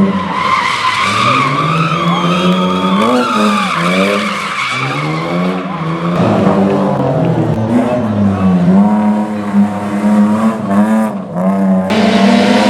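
Rally car driven hard, its engine revving up and dropping back again and again through gear changes and lifts. Tyres squeal through the first half.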